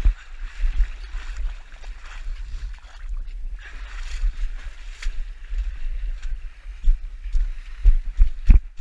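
Muddy water splashing and sloshing as a runner wades through a water-filled pit and climbs out the far side, heard from a body-worn action camera. Heavy irregular low thumps from the jolting camera run underneath, and sharp knocks near the end as the running strides pick up.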